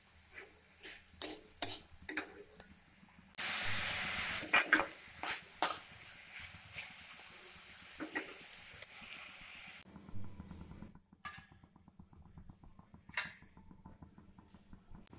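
Spatula scraping and tapping on a kadai as ground masala fries in oil. About three and a half seconds in there is a sudden loud burst of sizzling, and it settles into a steady frying hiss with more scrapes. It is quieter near the end, with a few sharp knocks of the spatula on the pan.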